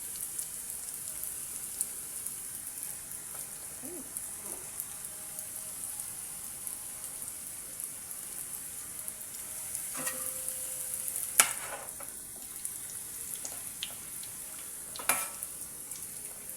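Samosas deep-frying in hot oil: a steady, high sizzle, with two sharp knocks, one a little past the middle and one near the end.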